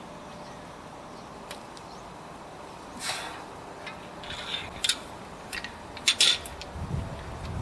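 Metal hand tools clinking and scraping on the brake caliper carrier bolts. It starts with a short scrape about three seconds in, then several sharp clicks and clinks, with dull knocks near the end.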